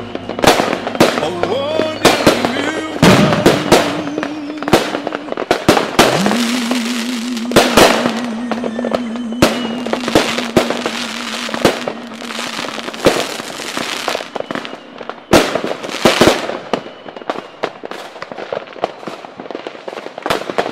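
Fireworks going off: a rapid, irregular run of sharp bangs and crackles. Underneath is a held, wavering musical tone.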